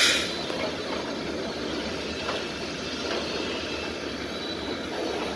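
Florida East Coast Railway open-top hopper cars rolling past: a steady rumble and rattle of steel wheels on the rails. A short, loud burst of noise comes right at the start and fades within a fraction of a second.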